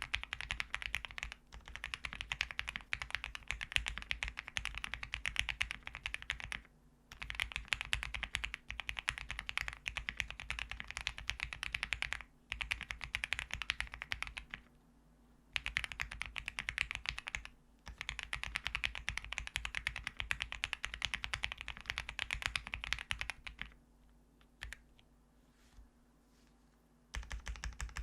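Fast typing on an Owlab Link65 mechanical keyboard with lubed Gateron Ink Black linear switches on an FR4 plate and GMK keycaps. Rapid keystrokes come in bursts broken by short pauses, with only a few scattered keystrokes for a few seconds near the end.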